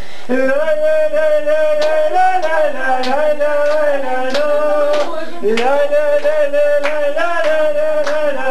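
Group of people singing a Ukrainian song together, with a man's voice prominent, on long held notes with a wavering pitch. Sharp beats keep time under the singing, roughly one every half second or so.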